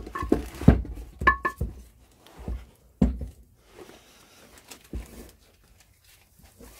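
Metal gearbox parts of a Land Rover Series gearbox knocking and clunking as they are handled on the bench, with a short metallic ring about a second in. The knocks come thick at first and thin out over the last few seconds.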